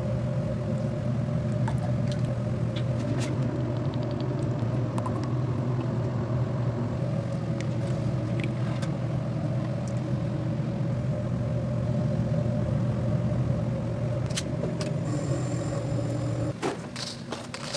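A steady low mechanical hum with a few light clicks and taps over it; the hum cuts off sharply near the end, followed by a quick run of clicks.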